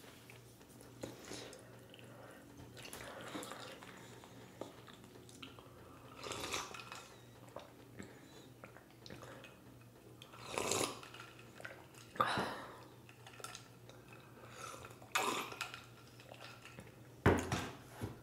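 Close-miked eating sounds: faint chewing with a few short, louder mouth and drinking noises every couple of seconds, including sips and swallows from a glass around the middle.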